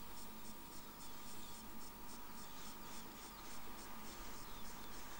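Insects chirping in an even rhythm, about four or five short pulses a second, over a steady hum and a scratchy rustle.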